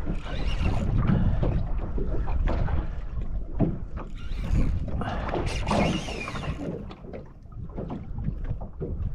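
Wind buffeting the microphone and water slapping against a small boat's hull at sea, in uneven gusts and splashes; no engine is heard running.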